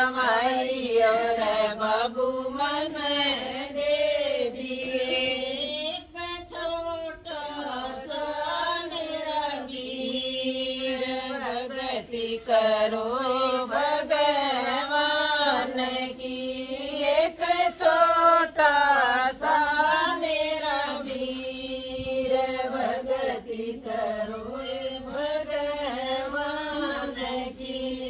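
Women singing a Hindi devotional bhajan to Hanuman, a slow melody of long, wavering held notes.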